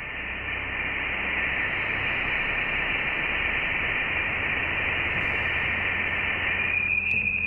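Sonified space data: a steady wash of radio-like static hiss, brightest in its upper range, over a low hum that swells about halfway through. A thin, steady high tone comes in near the end.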